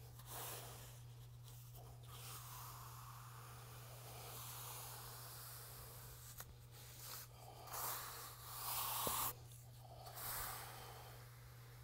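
Steel finishing trowel sliding and scraping over wet urethane cement screed, smoothing it in a series of strokes that swell and fade; the loudest stroke comes a little after two thirds of the way in.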